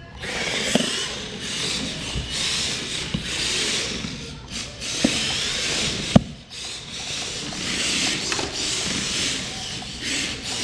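Two Air Hogs Hyper Tracks remote-control vehicles driving on a hard floor: their small electric motors and tracks whirring in stretches that come and go, with a few sharp knocks, the loudest about six seconds in.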